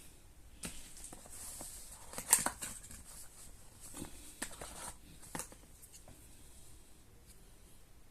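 Objects being handled: scattered clicks, taps and rustles, the loudest a sharp click about two and a half seconds in, then quieter toward the end.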